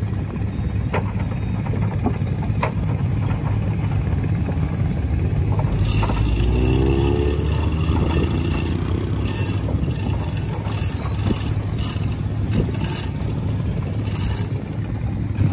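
Vehicles driving off a wooden ferry's ramp: a steady low engine rumble with a few knocks as a car rolls off in the first seconds, then from about six seconds in a motor scooter's engine rising in pitch as it rides down the ramp.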